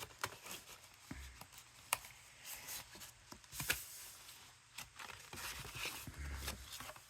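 Faint rustling and crinkling with scattered light clicks: crafting supplies and packaging being handled while a cutting die is taken out.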